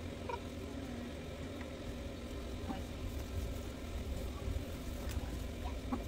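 Quiet outdoor background: a steady low rumble with a few faint, brief ticks and small sounds scattered through it.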